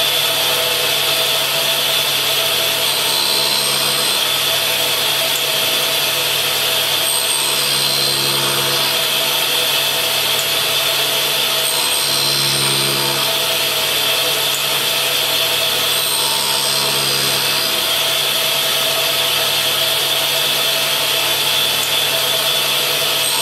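Clarkson Mark II tool and cutter grinder running steadily with a constant whine, as an end mill is passed back and forth across the grinding wheel. About every four to five seconds a grinding pass swells for around a second as the cutter meets the wheel.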